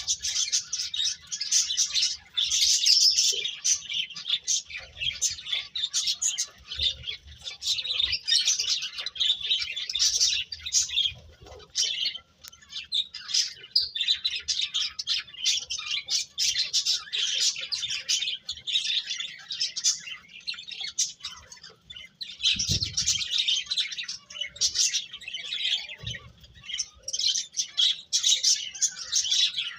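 A flock of small birds chirping and twittering continuously, many quick high-pitched chirps overlapping, with brief lulls.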